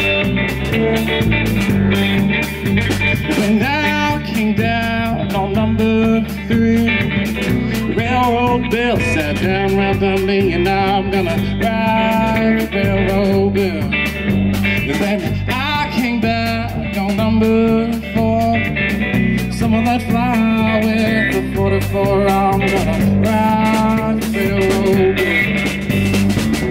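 Live blues trio playing an instrumental break: electric guitar leading with bent, gliding notes over electric bass and a drum kit keeping a steady beat.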